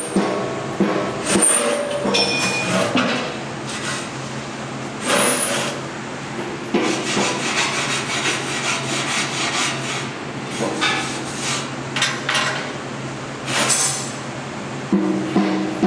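Sheet-steel wood-stove body being handled and worked on a steel welding table: scattered knocks and clanks, with a stretch of scraping and rasping about halfway through, over a steady low hum.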